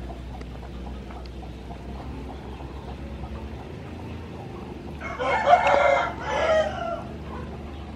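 A rooster crowing once, about five seconds in, a loud drawn-out call that breaks briefly before its final part, over a steady low background hum.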